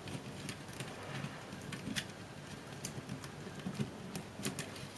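Faint, irregular clicks and ticks of thin wires and small plastic connectors being handled and pulled free from a digital camera's zoom unit.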